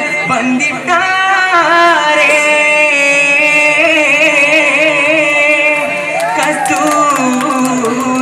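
Vattappattu, a Kerala Mappila wedding song, sung by a lead singer who holds long notes and bends them in wavering, ornamented runs.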